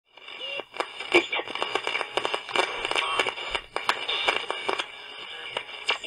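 Electronic intro sound effects: radio-like static with many irregular crackling clicks and short chirping glides over steady high tones.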